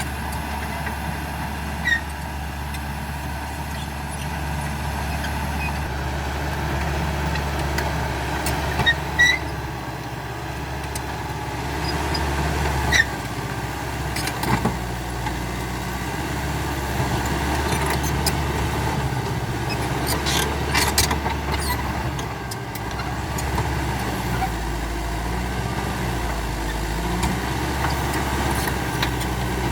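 CAT D5K XL bulldozer's diesel engine running steadily, with sharp metallic clanks now and then, about half a dozen over the stretch.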